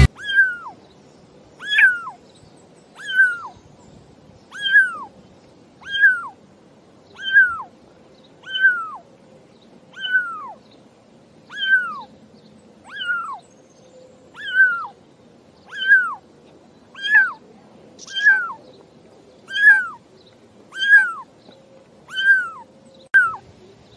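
Kitten meowing over and over: a short call that falls in pitch, repeated about every second and a half, some seventeen times in a row.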